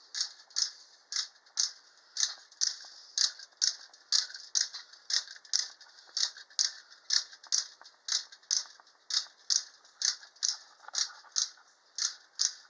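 Clockwork of a 1950s T.P.S. tin wind-up toy running as its two bears bat a tin ball back and forth: a steady, even train of light, sharp tin clicks, about three a second.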